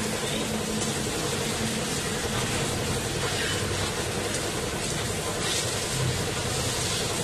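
Pressure washer running steadily with a hum, its high-pressure water jet hissing as it sprays a motorcycle, with street traffic behind.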